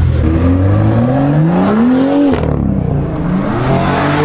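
Car engine being revved: its pitch climbs for about two seconds and drops away abruptly, then a second, shorter rev rises near the end.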